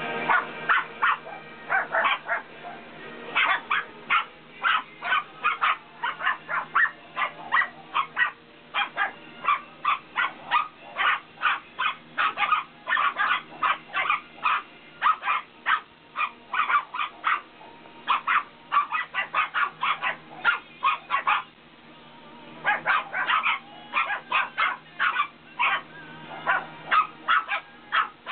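Shih Tzu puppies play-barking and yipping in rapid, high-pitched bursts, with a short pause about three-quarters of the way through.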